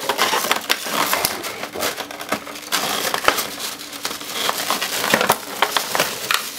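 Foam packing peanuts rustling and squeaking and a clear plastic clamshell package crackling as hands dig it out of a cardboard box, a dense, irregular crackle.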